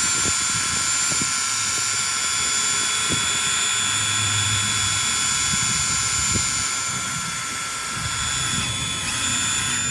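Huina RC excavator's electric motors whining steadily at a high pitch, briefly dipping and coming back up in pitch near the end, with a few light clicks underneath.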